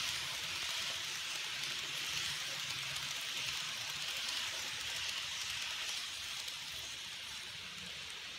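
N-scale model passenger train rolling on its track: a steady hiss of wheels on rail with a low hum underneath. It eases a little near the end as the train draws away.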